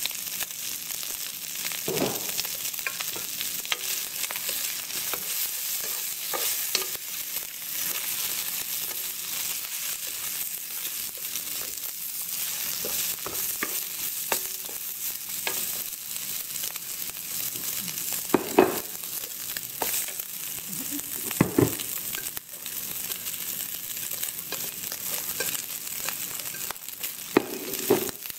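Pork and vegetables sizzling in a nonstick wok as they are stir-fried, a steady hiss with a plastic spatula scraping and knocking against the pan now and then. Several louder knocks come in the second half.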